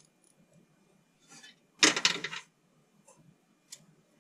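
Metal tools and parts clinking: a few faint clicks, a short clatter of sharp strokes about two seconds in, and a single click near the end.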